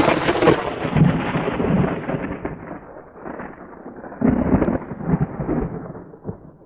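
Thunder: a loud crack dying away into a long rolling rumble that swells again about four seconds in, then fades out near the end.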